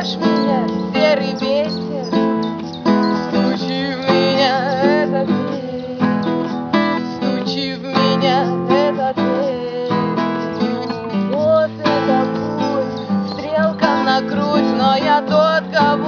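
Acoustic guitar strummed steadily in a live song performance, with a melody line wavering in vibrato above the chords.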